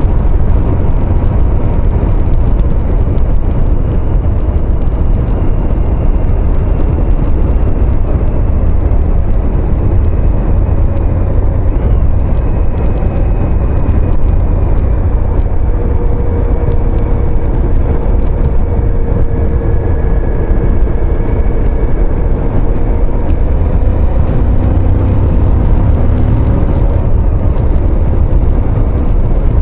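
Motorcycle riding at steady road speed, heard from a bike-mounted camera: a loud, steady low rumble of wind on the microphone over the drone of the engine and tyres.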